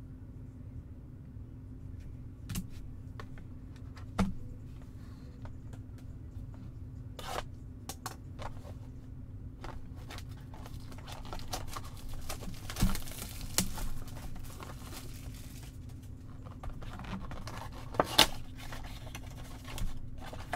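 A cardboard trading-card box being handled and torn open, with scattered rustling, tearing and light taps that grow busier partway through, over a steady low hum.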